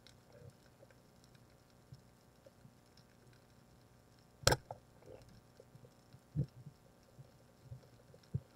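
Underwater, a speargun fires with one sharp snap about halfway through, amid faint underwater background and a few soft knocks.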